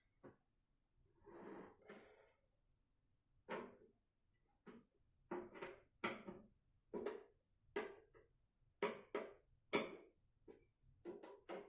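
Light, irregular clicks and knocks of hardware being handled and fitted inside a PC case, about a dozen in quick succession after a short rustle near the start.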